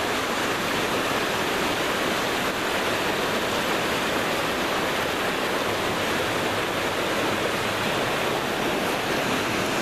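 Mountain creek rushing over rocks: a steady, unbroken rush of white water.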